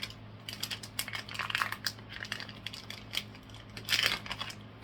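A card deck's packaging being opened by hand: crinkling and rustling with many quick clicks, loudest about four seconds in.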